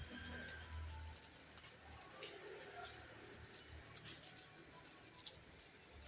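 Packages and products being handled during an unboxing: scattered small clicks, taps and rustles of plastic and cardboard, irregular and close by.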